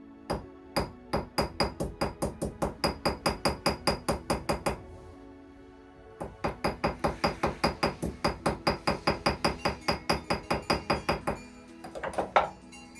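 Small hammer peening the shield pins into a pocket knife's bone handle scale: rapid light taps, about five a second, in two long runs with a pause of about a second and a half between them, then a few last taps near the end.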